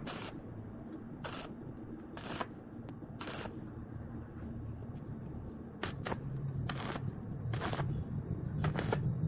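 Stick welder striking brief arcs to tack a galvanized square steel tube frame: about ten short crackling bursts, with a pause of a couple of seconds in the middle, over a steady low hum.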